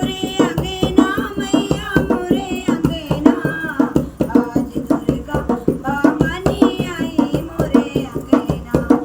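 A devi geet, a Hindi devotional folk song to the Goddess, sung by a woman over a quick, steady hand-drum beat.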